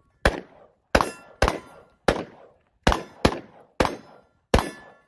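Eight rifle shots from a short-barreled AR-style rifle, fired at an uneven pace about half a second to three-quarters of a second apart, with steel targets clanging and ringing briefly after the hits.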